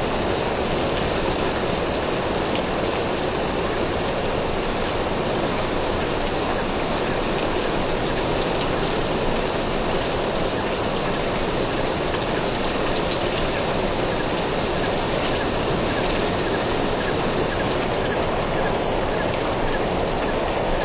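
Steady rain falling: an even, unbroken hiss, with a few sharper drop hits here and there.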